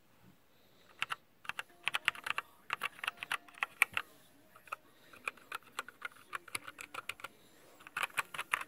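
Keys on a Glorious GMMK mechanical keyboard with Gateron Brown tactile switches being typed on: quick runs of clacking keystrokes. They come thick from about one to four seconds in, sparser through the middle, and in another quick burst near the end.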